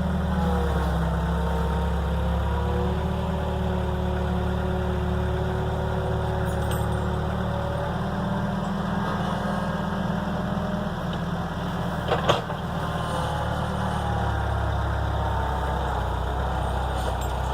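Skid steer engine running steadily at idle, with a faint wavering whine over it and a single sharp knock about twelve seconds in.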